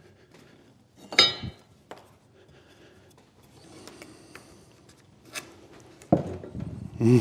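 Wooden workpieces being handled at the bench: a sharp knock with a brief ring about a second in, then light rubbing and scraping of wood, and a few small taps.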